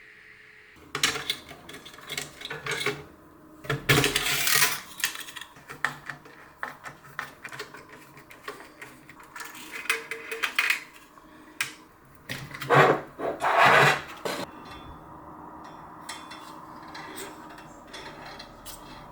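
Irregular rubbing, scraping and clattering of PC parts being handled and fitted together, loudest about four seconds in and again near the middle, then quieter toward the end.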